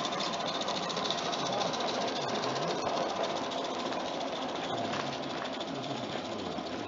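G-scale model steam locomotive running past with its train: a fast, even run of chuffs and wheels clicking on the rails, fading slightly near the end as it moves away.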